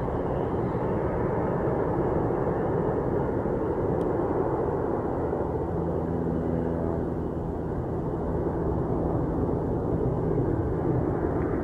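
Boeing 747-8 freighter's four GEnx turbofans at climb power as the jet flies away: a steady rumble, with a low hum coming in about halfway through.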